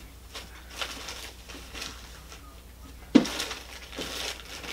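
Fly-tying materials and tools being handled at the bench: a few light taps and clicks, then a sharp click about three seconds in followed by a short crinkling rustle.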